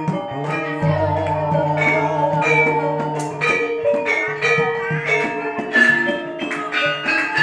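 Javanese gamelan ensemble playing: struck bronze metallophones ringing in a steady pattern over kendang drumming, with a deep low tone coming in about a second in.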